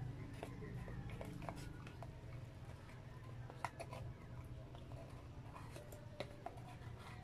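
Eating sounds: a plastic spoon clicking and scraping in a paper takeout box, as scattered soft clicks over a steady low hum.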